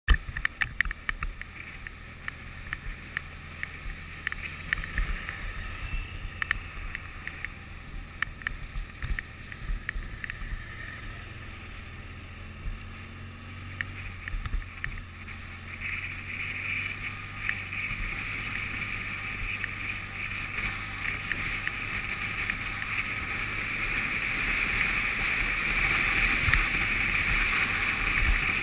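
Motorcycle ride heard from a bike-mounted camera: a steady low engine hum under wind rushing over the microphone, with frequent short clicks and knocks as the bike goes over a rough, potholed dirt road. The rushing grows louder from about halfway.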